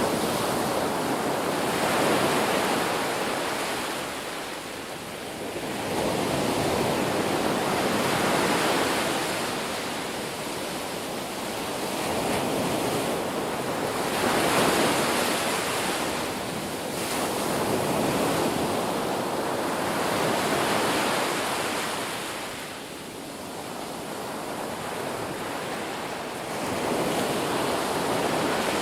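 Ocean waves breaking and washing on a shore, a steady surf rush that swells and ebbs every four to six seconds.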